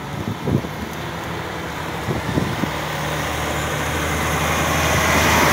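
Heavy diesel truck approaching and drawing level, its engine running steadily while its tyres hiss and spray through standing rainwater on the road, growing louder toward the end.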